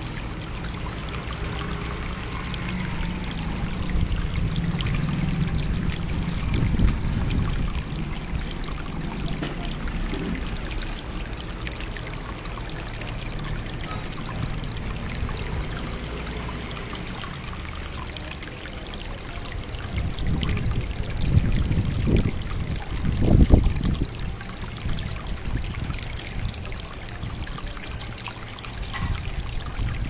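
Floating-teapot tabletop water fountain: a steady stream of water pouring from the spout into the cup and basin below, trickling throughout. Low thumps and rumbles come and go over it, the loudest about two-thirds of the way through.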